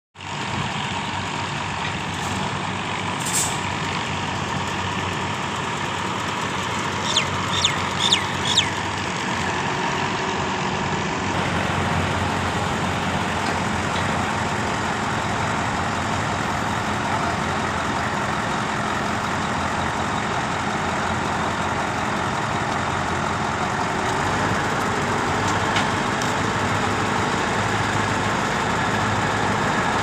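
Diesel engine of a Schwing truck-mounted concrete pump running steadily while the outriggers are set, growing a little louder about eleven seconds in. Several sharp metallic clicks come close together about seven to nine seconds in.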